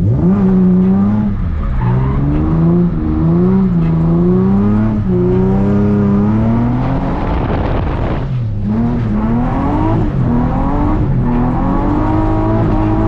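Nissan 350Z's V6 engine revving up and down again and again under throttle during drifting, with a stretch of tyre noise about two thirds of the way through.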